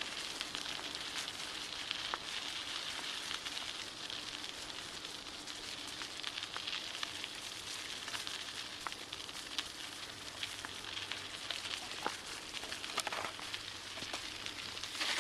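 Bicycle tyres rolling over a bumpy trail surface: a steady crackling hiss with scattered clicks and rattles, and a louder burst right at the end.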